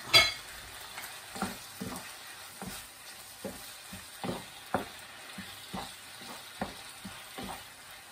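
Wooden spatula stirring fish balls in a non-stick frying pan, knocking and scraping against the pan about once or twice a second over a steady sizzle of frying. Right at the start, a single sharp clink with a brief ring is the loudest sound.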